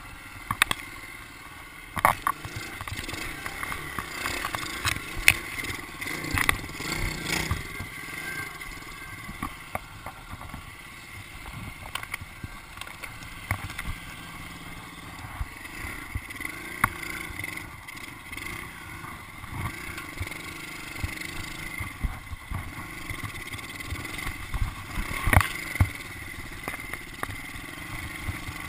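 110cc pit bike's single-cylinder four-stroke engine running while being ridden over a rough grass track. It has frequent irregular knocks and rattles as the bike jolts over bumps, with a few sharp loud knocks.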